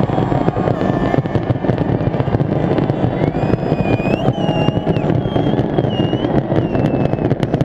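A New Year fireworks display crackling and popping in a rapid, unbroken barrage over the din of a dense crowd. In the second half a few high whistles rise and fall over it.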